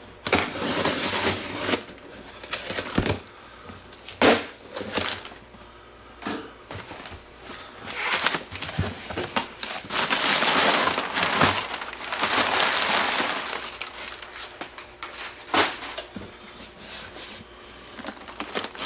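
Cardboard shipping box being opened: packing tape slit and flaps pulled back, then crumpled packing paper rustled and crinkled as it is handled, with a sharp knock about four seconds in.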